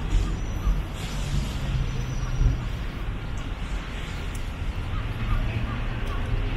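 Busy city street ambience: a steady low rumble of road traffic, with a few faint bird chirps.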